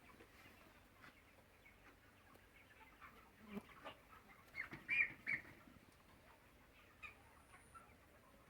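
Chickens calling softly with scattered short clucks and chirps, and a quick run of three louder calls a little over halfway through.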